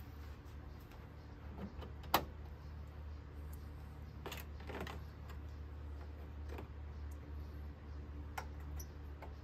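A few sharp clicks and light rattles of plastic wiring connectors and clips being handled, the loudest about two seconds in, over a steady low hum.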